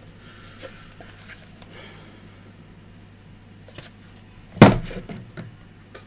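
Cardboard fan packaging being handled on a desk: faint rustling, then a single sharp knock a little over halfway through, followed by a few light clicks.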